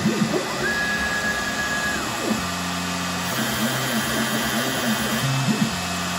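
CNC machine engine-turning a metal plate: the spindle runs steadily while the axis motors whir in short rising-and-falling sweeps as the tool steps from one swirl to the next. A higher steady whine is held for about a second near the start.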